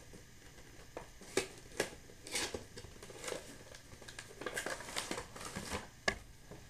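Packaging of a boxed action figure being handled and opened: irregular crinkling and rustling with scattered sharp taps and clicks.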